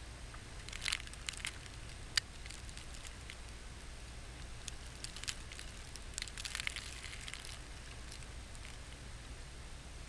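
Wind-driven blizzard snow ticking and crackling against the camera in short clusters, over a steady low rumble. The sharpest single tick comes about two seconds in, and a denser run of crackles comes about five to seven seconds in.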